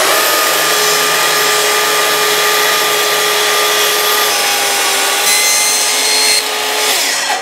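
Festool TS55 plunge track saw with its 48-tooth fine-tooth blade ripping 44 mm thick ash along the grain. In the second half its pitch drops a little as the blade struggles very slightly towards the end of the cut, then the saw is switched off and winds down near the end.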